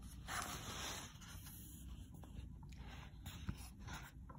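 Soft rustle of a picture book's paper page being handled and turned, strongest about half a second in, followed by faint scrapes and ticks.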